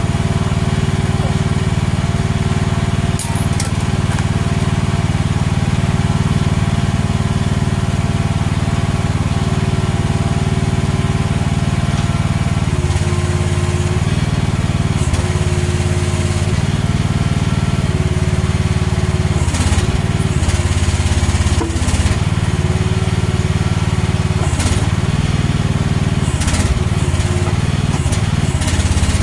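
AGT H13R mini excavator's engine running steadily; from about halfway through its note repeatedly dips and recovers as the hydraulics are loaded, with a few sharp knocks in the second half.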